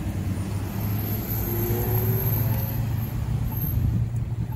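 Steady low hum of a motor vehicle engine running, with a faint rising tone between about one and a half and two and a half seconds in.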